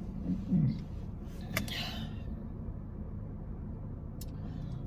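A steady low hum, with one sharp click about one and a half seconds in.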